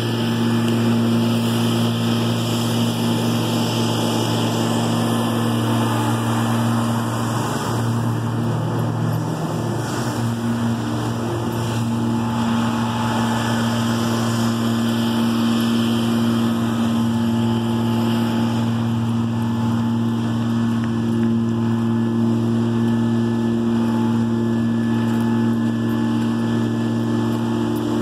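An engine running at a steady speed, giving a constant low drone, with a slight shift in the hum about ten seconds in.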